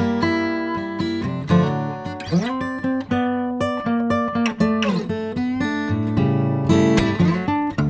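Background music: guitar playing a run of picked notes, with a few notes that slide in pitch.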